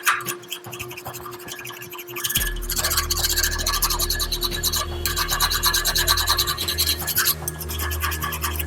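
Resistance spot welder working on 12 mm galvanized wire rod: scattered sharp clicks and crackles, then about two seconds in a deep steady hum starts with a dense sizzling crackle over it.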